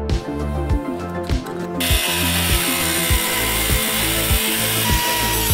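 Background music with a steady beat; about two seconds in, a cut-off wheel starts grinding through a steel flange, adding a harsh hiss that continues to the end.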